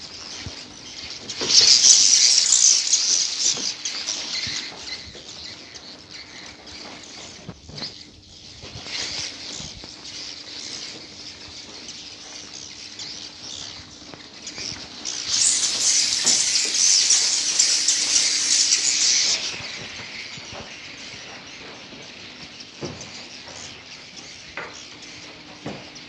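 A crowd of swiftlets chittering and twittering together at their nesting planks, a dense high-pitched din that swells loudly about a second and a half in and again around fifteen seconds in, easing off between. A faint steady hum runs underneath.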